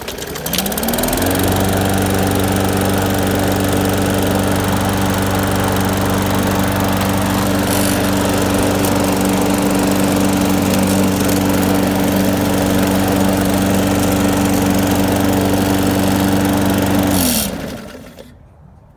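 Briggs & Stratton 450E 125cc single-cylinder engine on a Murray push mower starting on a pull of the recoil cord, revving up within a second and running steadily at speed. It stays running now that the carburetor has been cleaned, where before it would fire and die. About 17 seconds in it slows and stops.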